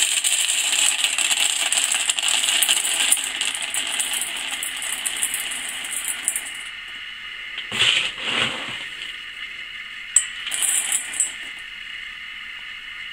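Dry feed pellets pouring into a stainless steel bowl: a continuous hard rattle that stops about seven seconds in, followed by two short rattles of pellets added later.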